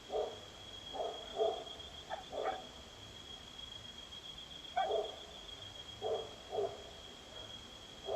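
Short animal calls, about nine in loose groups with pauses between, over a steady high-pitched whine.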